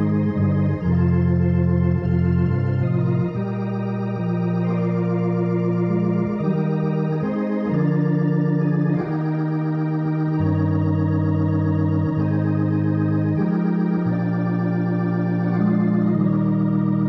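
Electronic console organ playing a hymn in slow, held chords, with a wavering tremolo from the cabinet's spinning rotary speaker.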